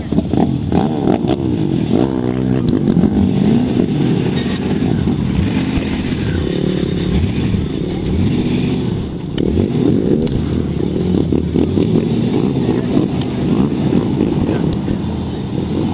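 Lifted Chevy 4x4 truck on big mud tyres, its engine revving up and down repeatedly as it spins through dirt and mud.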